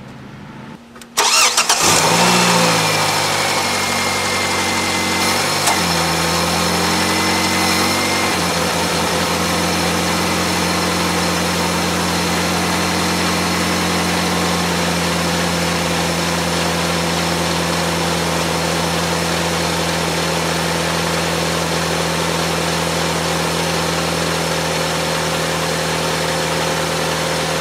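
Mazda 626's 2.0 L FS four-cylinder engine starting about a second in, on its first start after four weeks sitting with the valve cover and intake off. It runs at a fast idle that steps down twice over the next several seconds, then settles into a steady idle, breathing through an open cone air filter.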